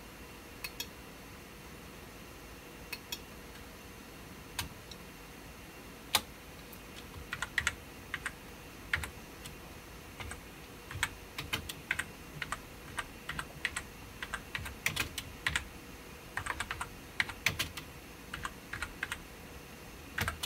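Typing on a computer keyboard: a few separate key presses at first, then irregular runs of keystrokes from about a third of the way in.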